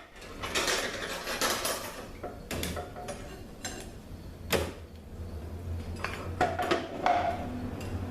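Metal automatic-transmission parts clinking and knocking as they are handled and set down, with a string of separate sharp knocks, the loudest about halfway through. A few knocks near the end ring briefly. A low steady hum runs underneath.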